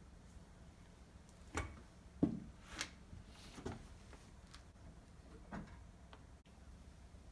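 A handful of separate knocks and clunks, irregularly spaced about a second apart, the loudest a little over two seconds in, over faint room tone.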